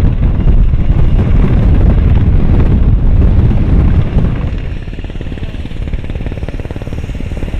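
HH-60 Pave Hawk helicopter in flight, its main rotor beating in a rapid, loud pulse over the running turbine engines. About four and a half seconds in, the sound drops noticeably in level and the even rotor beat continues more quietly.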